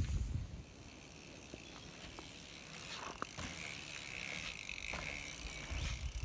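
Mountain bike tyres rolling faintly over a dirt pump track, with a few light clicks and a low rumble that slowly builds from about halfway.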